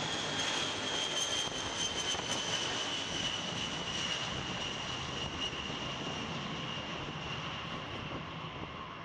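B-52H bomber's eight TF33 turbofan engines at takeoff power during the takeoff roll: a dense jet rush with a high whine that slowly drops in pitch as the aircraft draws away, fading a little toward the end.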